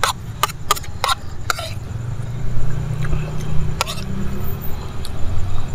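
A metal spoon clicking and scraping against a plate while scooping up fried rice: a quick run of clicks in the first second and a half, then one more about four seconds in. A steady low hum runs underneath.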